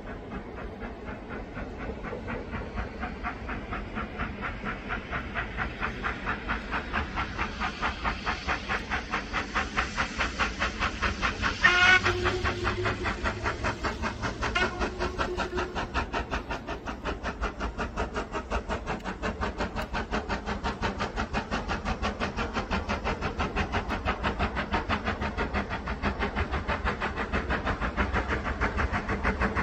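Ivatt Class 2MT 2-6-2T tank locomotive No 41241 working a train under steam, its exhaust beats rapid and even, growing louder as it approaches. About twelve seconds in, the whistle sounds: a loud blast, then a shorter second one.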